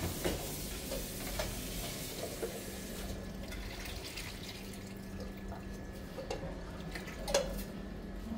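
Water running from a tap into a sink, shutting off about three seconds in, with scattered light knocks and one sharper knock near the end.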